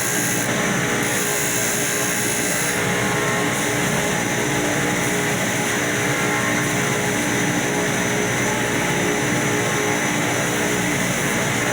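Electric power sander running steadily at constant speed, a continuous motor hum with a broad abrasive hiss.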